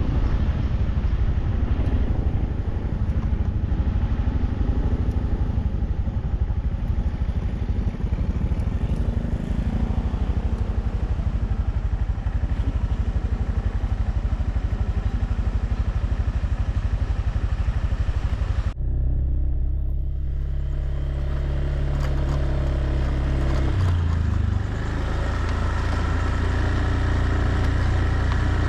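Motorbike engine running during a ride on dirt tracks, with heavy wind rumble on the microphone. About two-thirds of the way through the sound changes abruptly to a steadier engine note whose pitch steps up and down a few times.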